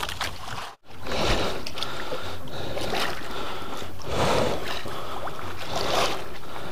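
Sea water splashing and lapping against a small outrigger boat, an even rush that swells every second or two, with a brief cut to silence about a second in.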